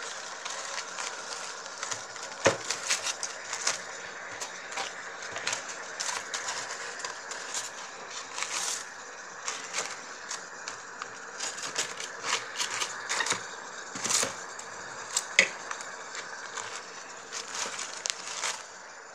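Aluminium foil wrapping crinkling and crackling as it is handled and pulled open: irregular crackles throughout, with a few sharper, louder clicks.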